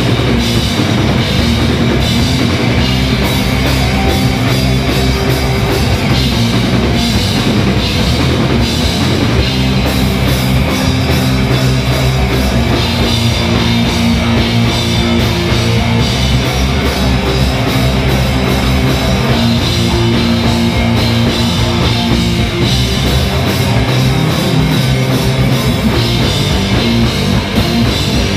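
Heavy rock band playing live: distorted electric guitars over a driving drum kit, loud and continuous.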